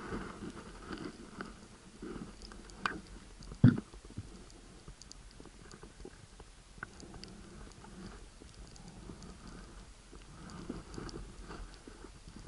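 Muffled underwater crackle and scattered faint clicks picked up by a submerged camera, with one sharp knock a little under four seconds in and a smaller one just before it.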